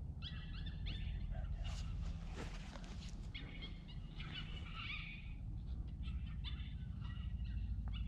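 Electronic predator call playing animal cries: repeated short, high-pitched calls in clusters, with wind rumbling on the microphone.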